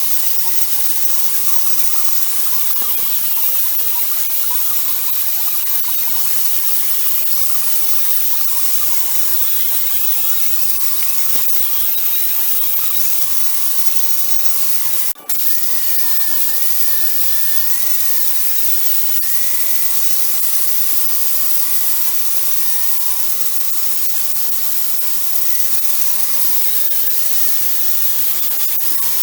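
A power tool running steadily with a loud hiss and a motor whine that wavers in pitch, cutting out briefly about halfway through.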